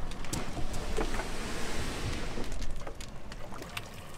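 Wind noise and small waves lapping around a trimaran's hull in shallow water, with a few light knocks scattered through.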